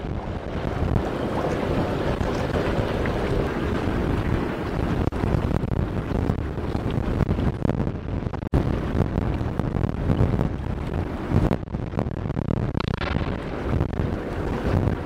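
Wind buffeting the microphone over the steady drone of a boat and rushing water, briefly cutting out about eight and a half seconds in.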